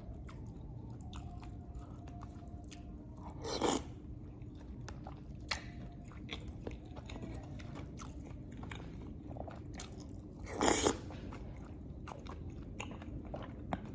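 Close-miked mouth sounds of a person chewing lontong, with many small wet clicks. Two louder, longer mouth noises come about four seconds in and again about eleven seconds in.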